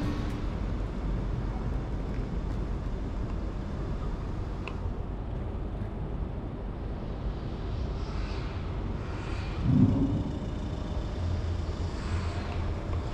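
Urban ambience: a steady low rumble of distant traffic, with a short, louder low thump about ten seconds in.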